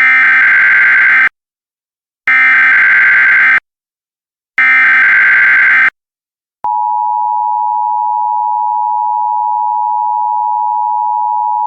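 Emergency Alert System header: three bursts of screechy SAME data tones, each about a second and a quarter long with a second's gap between them. About seven seconds in, the steady two-tone EAS attention signal (853 and 960 Hz) begins.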